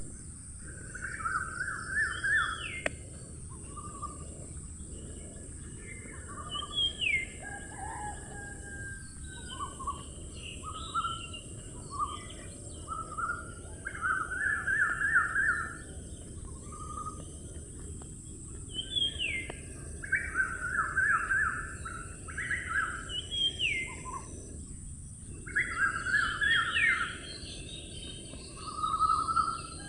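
Wild birds singing: repeated phrases of quick trilled notes and short rising whistles, coming every few seconds, over a steady high-pitched hiss and a low outdoor background.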